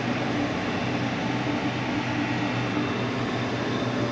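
PoolPak rooftop pool dehumidifier unit running with a steady hum and rushing air. A fan bearing is failing, and the blade seems to be running up against something.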